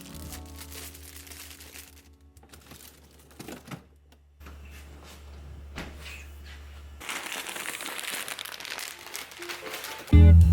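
Plastic bags and packaging crinkling and rustling as groceries are unpacked, with quiet background music. The crinkling grows denser in the last few seconds, and a loud guitar track starts right at the end.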